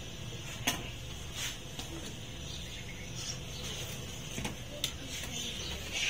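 Long iron ladle stirring milk in a large iron karahi, scraping the pan and knocking against it in a few sharp metal clinks, while the milk is split with tartaric acid to turn it grainy.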